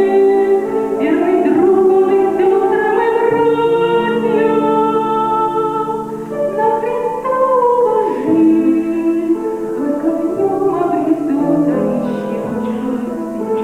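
A woman singing a slow song in long held notes over instrumental accompaniment.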